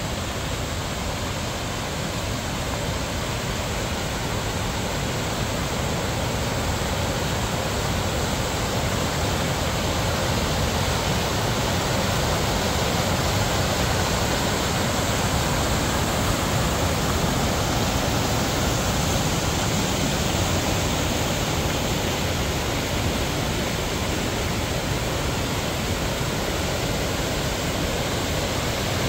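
Steady rushing of water, a continuous even roar with no breaks.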